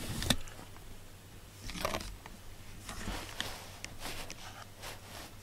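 A sharp click just after the start, then a few short rustling scuffs close to the microphone, over a low steady hum.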